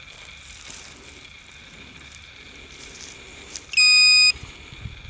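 Metal-detecting pinpointer probe giving one steady high-pitched beep about half a second long near the end, its alert that it has found metal in the soil, here a buried coin.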